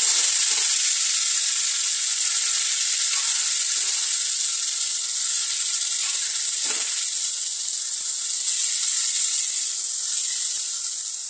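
Loud, steady sizzling of wet cooked mustard greens hitting hot mustard oil in a kadhai, where garlic, dried red chillies and asafoetida were frying as a tempering. A few short knocks, one plainer about two-thirds of the way through.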